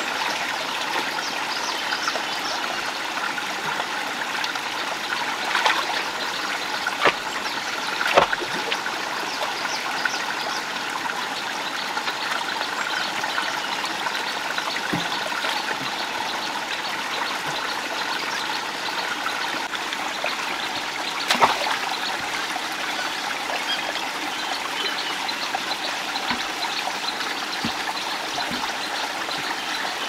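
Shallow stream running steadily over rocks, with a few brief sharp knocks and splashes as someone wades and moves wooden poles, the loudest about eight seconds in and another just past twenty-one seconds.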